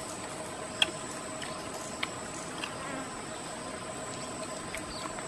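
Insects droning steadily in the forest, including a high, even whine, with a few short clicks about one and two seconds in.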